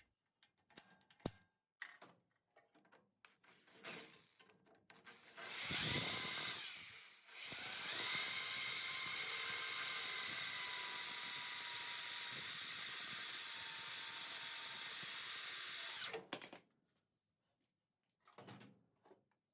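Power drill boring out spot welds in the rusted steel floor pan of an early Ford Bronco. After a few clicks and handling knocks, the drill runs briefly, then runs steadily with a high whine for about eight seconds and stops suddenly.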